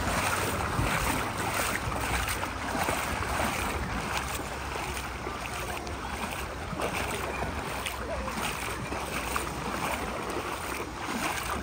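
Shallow Lake Michigan water sloshing and lapping around people wading through it, a steady watery wash with small splashes.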